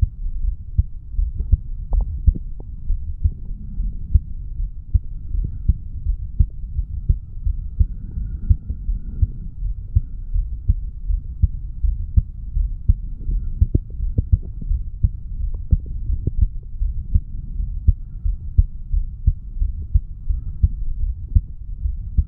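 A man's heartbeat recorded over the mitral valve area of the chest after weight training: a steady, regular run of short, low beats over a constant low rumble.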